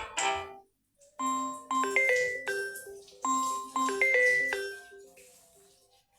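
Samsung Galaxy Tab A7 Lite ringtones: one ringtone stops, and about a second in a new one starts, a short chiming melody of bell-like notes that plays through twice.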